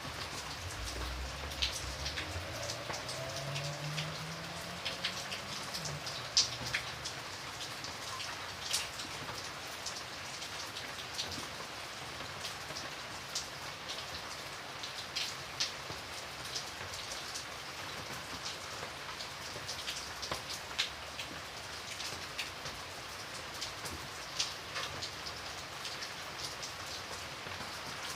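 Steady light drizzle, with single drops tapping sharply and irregularly close to the microphone. A faint low hum rises slowly in pitch over the first six seconds.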